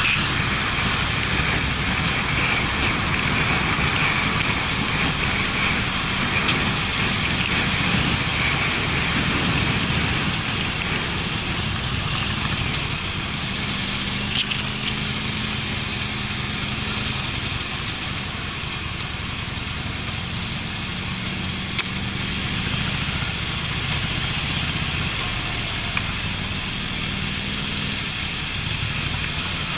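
Harley-Davidson Street Bob's V-twin engine running steadily while riding at road speed, largely covered by wind rush on the camera microphone. The overall level eases a little about a third of the way in, with the engine's steady note coming through more clearly in the middle.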